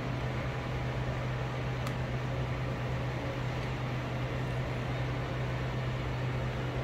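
Steady low hum and hiss of a running household appliance such as a fan, unchanging throughout.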